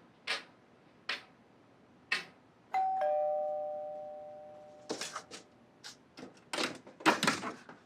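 Three short knocks or steps, then a two-note ding-dong doorbell chime, a higher note followed by a lower one, ringing out over about two seconds. In the second half come clicks and clatters of a door being unlocked and opened.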